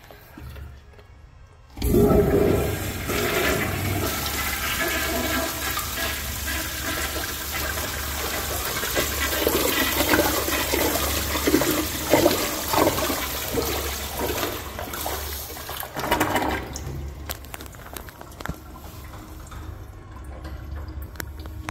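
Commercial flushometer toilet flushing: a sudden loud rush of water about two seconds in that runs strongly for some fourteen seconds, then dies down to a quieter flow.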